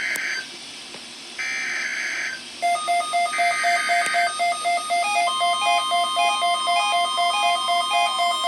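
Emergency Alert System SAME header: three data bursts of about a second each, rapidly alternating two high tones with short gaps between. About three seconds in, a rhythmic pattern of electronic beeps at several pitches starts, and a steady alert tone joins it about five seconds in.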